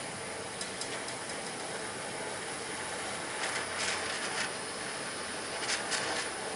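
Gas torch flame held on a steel spoon of aluminum scrap, making a steady, even rushing hiss as the metal melts down to liquid. A few light scrapes come through it about a second in, around the middle, and near the end.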